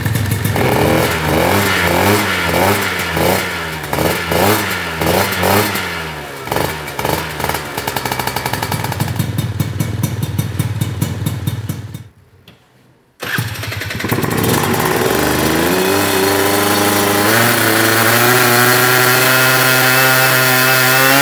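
Tuned two-stroke scooter engine, fitted with a hand-built expansion-chamber exhaust, running on a roller dynamometer. It is revved up and down in about ten quick blips, then, after a short break about twelve seconds in, runs under load with its pitch climbing steadily.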